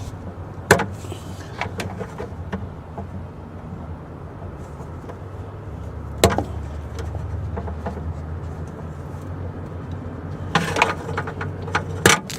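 Sharp snaps of a cable cutter biting through thick, stiff battery cables, a few seconds apart, with a cluster of clicks near the end, over a steady low hum.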